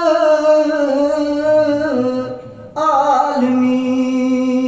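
A single voice singing a naat without accompaniment, drawing out a phrase in long held notes. The voice breaks off briefly for a breath about two and a half seconds in, then holds a steady note.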